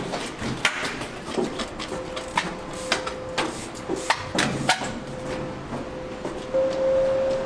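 A series of irregular sharp knocks and clicks, with a steady hum that sets in about two seconds in and grows louder near the end.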